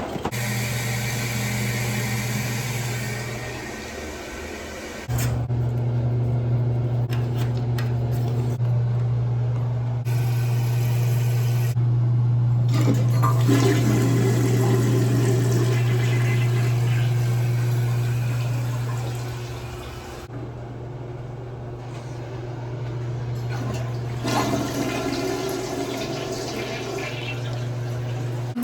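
Water rushing steadily through a shower valve with a low hum, as the shower is run on a newly installed Moen cartridge. The flow drops back about four seconds in and again around twenty seconds in, then picks up.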